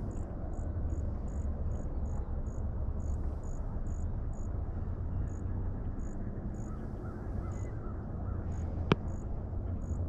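Pond-side outdoor ambience: a steady low rumble with a short high chirp repeating about two to three times a second, and one sharp click near the end.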